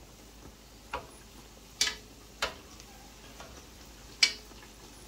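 A plastic slotted spatula knocks against the side of a metal pot four times while turning bara in hot oil. Each knock is a sharp click, and the oil sizzles faintly between them.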